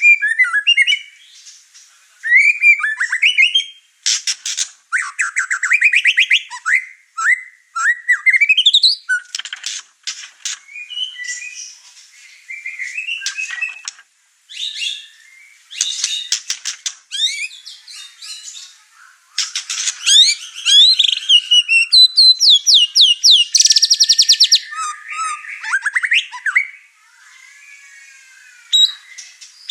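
White-rumped shama (murai batu) singing hard and fast: a varied run of loud whistles, sliding notes and quick rattling trills, broken by short pauses. The bird is overexcited and is unloading its learned repertoire of mimicked songs and calls.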